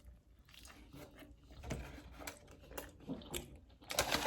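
Close-miked chewing of a bite of plantain dipped in crema: faint, irregular wet mouth clicks and smacks, a little louder near the end.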